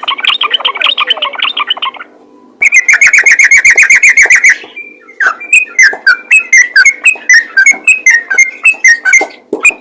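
Yellow-vented bulbul (trucukan) singing in fast, continuous bursts. A rapid chattering run breaks off about two seconds in; then comes a loud, dense trill and a string of quick falling notes, about three a second.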